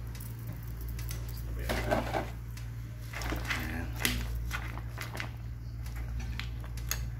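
Metal spoon knocking and scraping against a pan while pushing saluyot (jute mallow) leaves down into the broth, a few clinks about two, three and a half and four seconds in, over a steady low hum.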